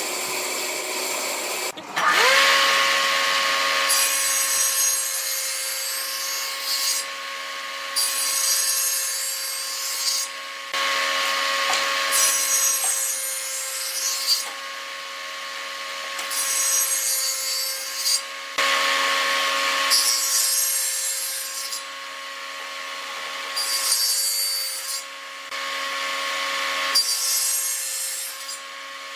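Table saw cutting slots into the end of a pine table leg. The motor holds a steady whine, and over and over the blade bites into the wood with a loud hissing cut lasting a couple of seconds, each pass followed by a short quieter gap.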